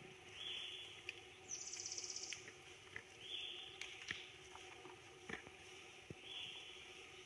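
Faint outdoor wildlife calls. A short, even, high-pitched call repeats about every three seconds, and a rapid pulsing buzz sounds about one and a half seconds in, with a few soft clicks.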